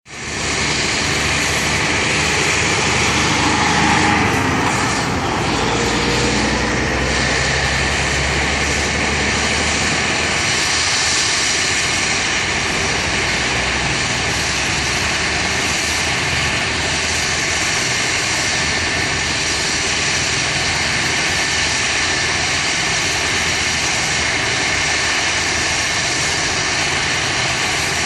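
Helicopter turbine engine and rotor running loud and steady, a high whine over the rush of the rotor. About four to six seconds in, a tone glides upward.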